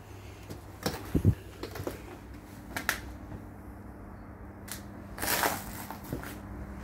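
Footsteps crunching irregularly over dry leaves and debris, with one heavier thump about a second in and a longer rustle near the end. Under them runs a faint steady low electrical hum of the kind an electricity substation gives off.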